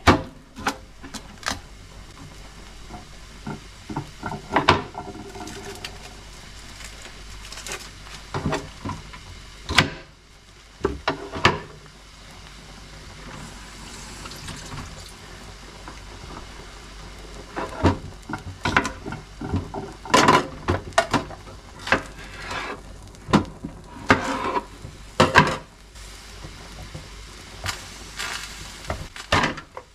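Kitchen clatter: irregular knocks and clinks of utensils and crockery over a pan of pasta boiling on the hob, the knocks coming thicker in the second half.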